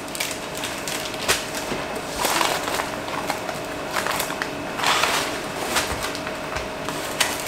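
Cardboard cake-mix boxes and the plastic packets inside them rustling and crinkling as they are pulled out, in several short bursts, over a faint steady hum.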